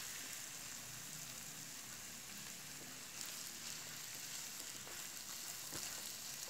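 Chicken pieces coated in ginger-garlic paste, with onions and green chillies, sizzling steadily as they fry in oil in a pan, with a couple of faint clicks.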